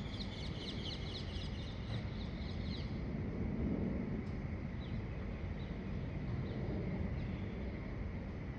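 Wild birdsong at dawn: a fast trill of short, high notes for about the first three seconds, then a few faint chirps, over a steady low background rumble.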